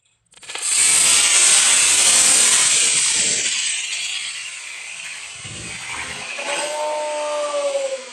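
D12-5 black-powder model rocket motor igniting and burning at liftoff: a sudden loud rushing hiss that starts a moment in, is loudest over the first couple of seconds, then slowly fades as the rocket climbs away.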